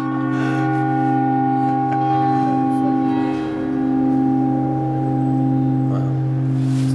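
Large bronze church bells ringing close up: a deep hum with many overtones that hold on steadily and swell and fade gently.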